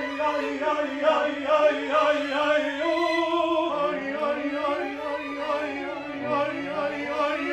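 Contemporary opera music: a man singing over a string ensemble of violins and cello, with long held, wavering notes that slide up and down in pitch.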